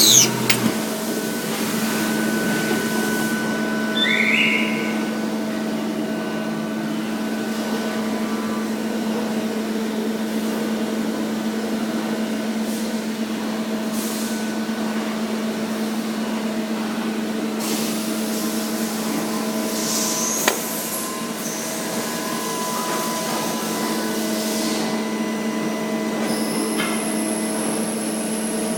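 CNC lathe running with a steady machine hum. There is a short rising whine about four seconds in and a sharp click about twenty seconds in.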